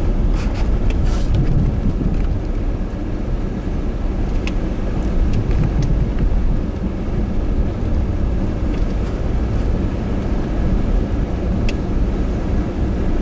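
Vehicle driving across lake ice: a steady low engine and drive rumble heard from on board, with a few light clicks and rattles.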